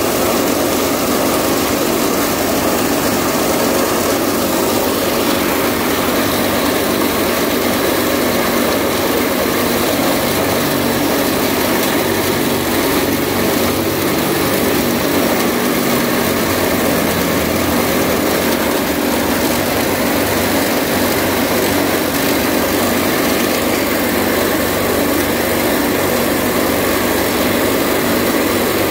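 Branch chopper driven by a 2 HP (1500 W) electric motor, running loud and steady while leafy green branches are fed in and shredded.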